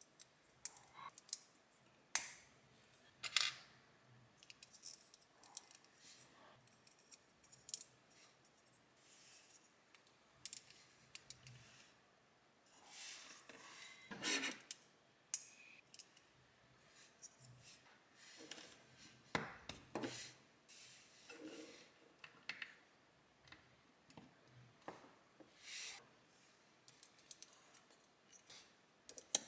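Plastic LEGO bricks handled and pressed together by hand: irregular small clicks and snaps, with short stretches of parts rubbing against each other.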